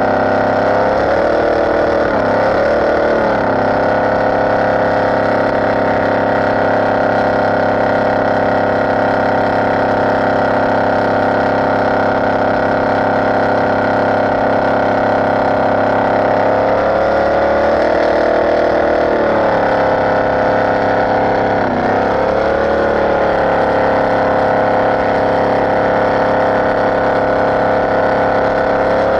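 Performance boat's inboard engine running steadily under way, heard from the open cockpit. The engine note dips and comes back up briefly a couple of seconds in, and twice more about two-thirds of the way through, as the throttle eases and opens again.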